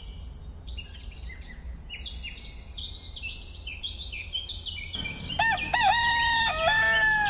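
Small birds chirping rapidly with short, high, falling notes, then about five seconds in a rooster crows loudly, a drawn-out cock-a-doodle-doo that is the loudest sound.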